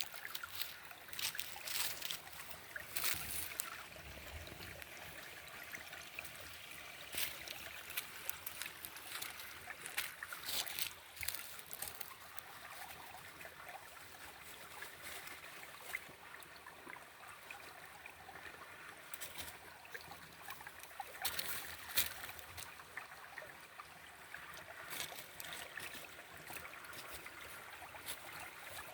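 Small forest stream trickling and burbling over stones, with irregular spells of sharper splashing.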